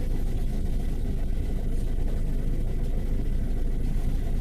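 City bus engine idling, heard inside the passenger cabin as a steady low rumble.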